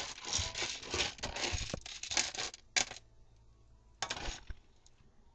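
A spoon stirring in a pot, scraping and clinking in quick bursts for about three seconds, then once more about four seconds in.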